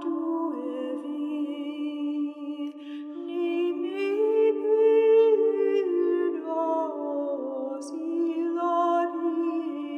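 Unaccompanied voices singing a slow sacred chant, with long held notes that glide from one pitch to the next and swell in the middle.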